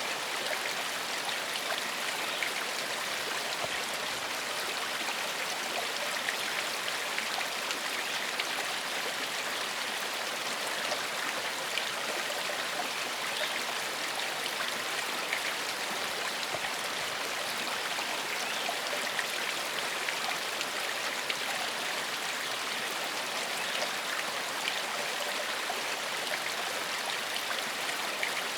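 Small forest stream flowing over stones, a steady rushing with fine splashing and babbling.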